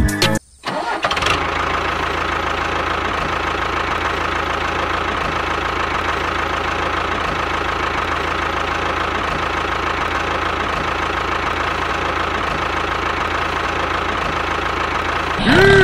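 Music cuts off, and about a second in a tractor engine sound starts running steadily at an even pace, with a low rumble and a steady higher hum.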